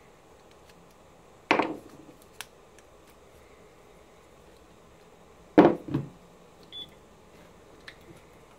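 Knocks and clicks of hybrid battery cell sticks and a small screwdriver being handled and set down on a wooden workbench: one sharp knock about a second and a half in, a double knock a little past halfway, and faint ticks between.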